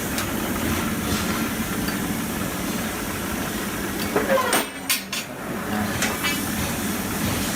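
GQ45 rebar cutter's 3 kW electric motor and drive running steadily with a low hum, with a few sharp metallic clanks about four to five seconds in.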